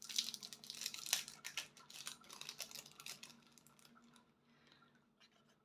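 Packaging rustling and crinkling as a small diamond painting cover minder is handled and unwrapped, with many small clicks and crackles; it dies away after about three and a half seconds.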